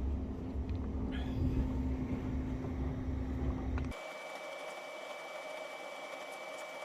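Steady low mechanical hum of a running machine, which cuts off abruptly about four seconds in, leaving a quieter room tone with a faint high whine.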